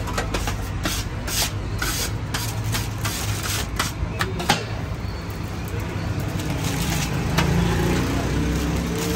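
Busy street background: a steady traffic rumble with a run of sharp clatters and knocks over the first few seconds. A wavering pitched sound, like an engine or voices, comes in near the end.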